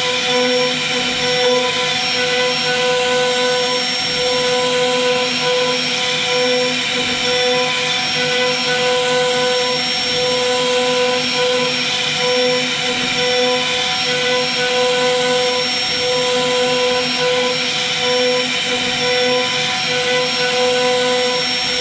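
CNC router spindle running steadily as its small carving bit mills a relief pattern into a wooden panel: a constant high whine with a cutting hiss over it.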